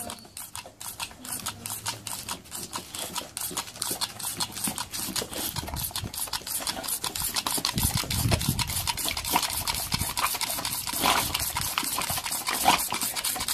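A boxer dog snapping its jaws at a jet of water from a pumped squirt gun. It makes a fast, even run of sharp clicks and splashes, about five or six a second, that goes on without a break.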